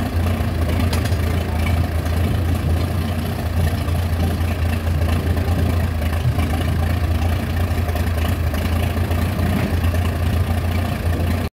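Farmall F-20 tractor's four-cylinder engine idling steadily, a low, even running note with no revving.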